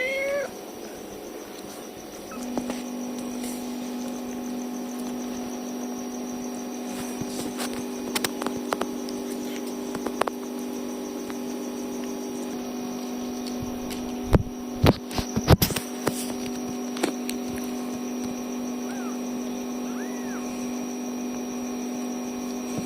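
A steady electrical-sounding hum that strengthens about two seconds in. A brief kitten mew comes right at the start, a faint mew comes near the end, and a few sharp knocks fall about two-thirds of the way through, the loudest sounds in the stretch.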